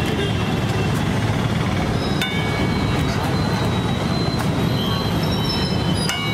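Two sharp metallic clinks, about two seconds in and again near the end, each leaving a brief ring from a stainless steel bowl as eggs are cracked on its rim, over a steady low rumbling noise.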